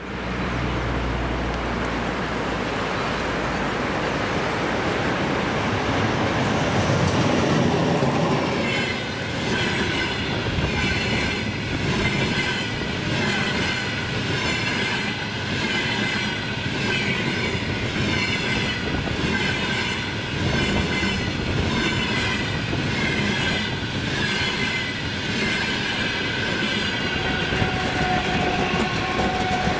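A passenger train of double-decker coaches hauled by an EP20 electric locomotive rolling past at speed. It starts with a low hum, then goes into a steady rolling rush with a rhythmic, repeating high ringing and clatter from the wheels over rail joints and switches.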